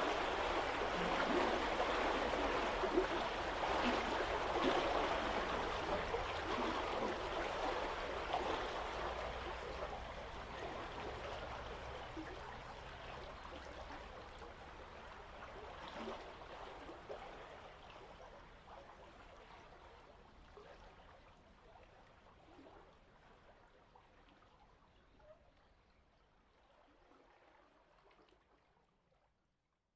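Water rushing and gurgling at a river lock, dying away gradually to nothing just before the end. A low steady hum runs underneath for about the first half.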